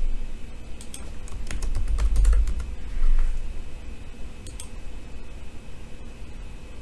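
Typing on a computer keyboard: a run of scattered keystrokes over the first three seconds, with a low rumble under them about two seconds in, then a couple of single key clicks about four and a half seconds in.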